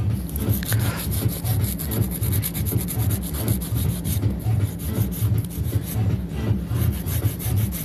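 Hand-held nail file rasping in quick back-and-forth strokes against the tip of a gel nail.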